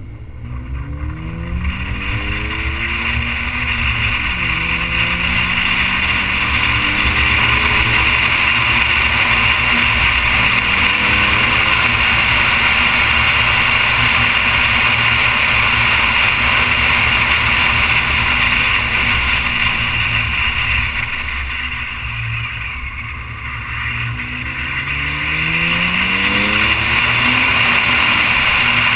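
Noble M400's twin-turbo V6 pulling away, its pitch climbing over the first few seconds with a drop about four seconds in, then holding a steady cruise under heavy wind and road noise. It eases off and quietens after about twenty seconds, then climbs in pitch again as it accelerates near the end.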